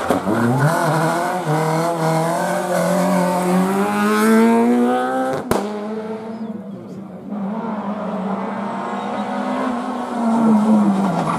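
Rally car engine accelerating hard out of a hairpin, its pitch climbing for about five seconds. After a sudden click, a second rally car, a Renault Clio, comes closer: faint at first, then louder, its engine note dipping near the end as it slows.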